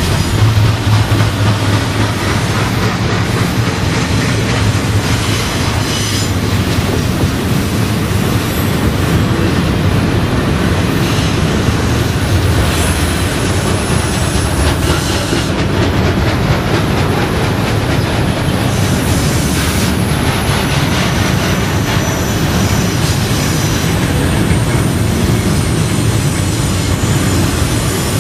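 Freight cars rolling past, doublestack container well cars then autorack cars, making a steady noise of steel wheels running on the rails. Thin, high-pitched wheel squeal comes and goes over it.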